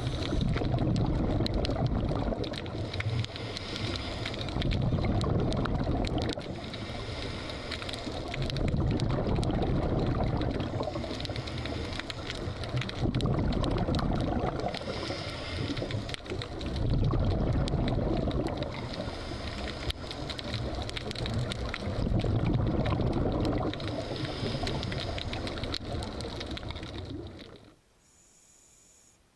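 A scuba diver's regulator breathing and exhaled bubbles, heard underwater, swelling and fading in cycles of about four seconds. It cuts off abruptly near the end.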